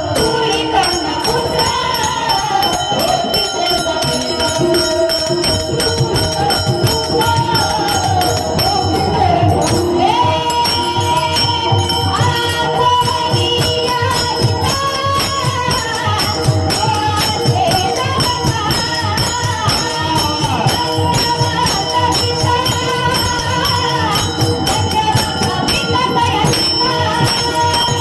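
Devotional singing by Warkari students: a voice carries a flowing melody over steady held tones, with fast jingling metallic percussion and a quick drum beat running under it.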